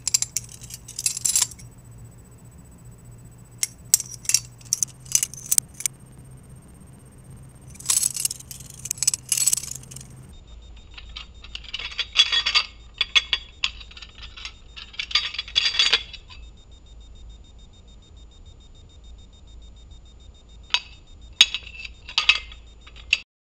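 Butterfly knife (balisong) being flipped: its metal handles clack and rattle against the blade and latch in quick runs of sharp clicks. There are about six such runs, each a second or two long, with pauses of a few seconds between.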